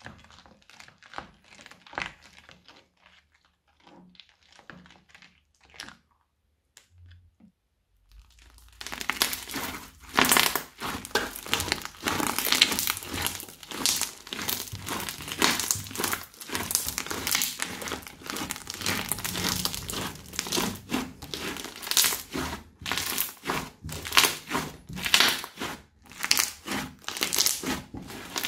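A spatula stirring slime full of sprinkle beads and pom-poms in a bowl, with faint scattered squelches and clicks; then, about eight seconds in, hands kneading and pressing crunchy slime, a loud dense crackling and popping that swells and eases with each squeeze.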